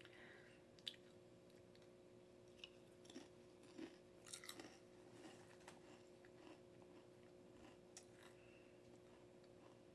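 Faint crunching of a person chewing a crisp chip: scattered soft crunches, the loudest cluster about four seconds in.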